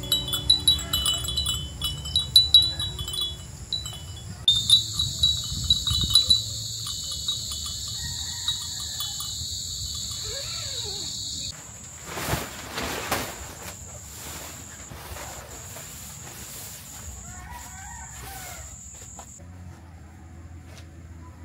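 Wind chimes tinkling for the first few seconds. Then a steady, high-pitched insect drone starts about four seconds in and cuts off suddenly near the middle, leaving a thinner, broken insect trill.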